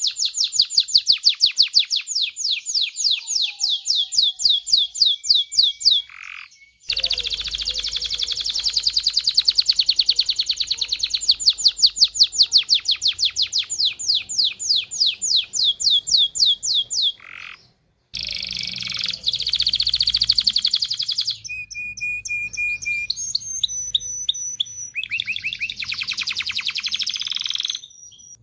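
Domestic canary singing: long rolling trills of rapidly repeated high notes, broken by short pauses, then more varied phrases with a few held whistled notes.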